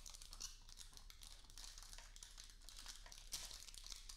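Faint crackling crinkle of thin protective plastic film being peeled off a 3D printer's touchscreen.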